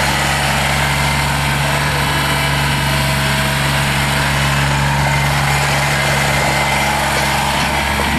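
Kubota BX22 sub-compact tractor's three-cylinder diesel engine running steadily.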